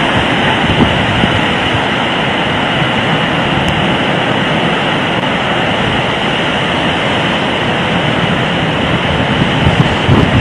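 Steady, loud roar of storm wind during a tornado, a little gustier near the end.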